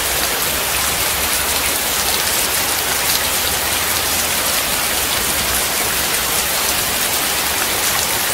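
Steady rain falling and splashing on a wet surface: an even hiss made of many small drop impacts.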